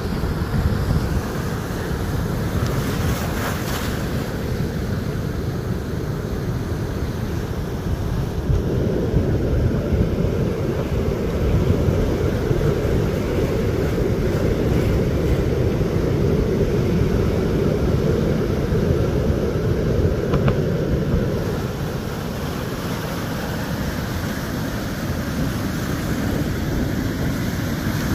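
Ocean surf breaking and washing up the beach in a continuous rush, with wind buffeting the microphone. The surf grows louder about a third of the way in and eases back near the end.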